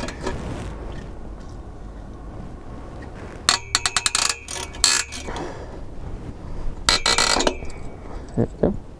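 Socket ratchet clicking on an exhaust clamp U-bolt nut, in two quick runs of clicks: one lasting about a second and a half, then a shorter one a couple of seconds later.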